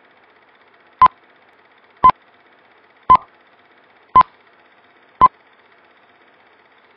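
Film-leader countdown beeps: five short, loud, single-pitched beeps, one about every second, over a faint steady hiss.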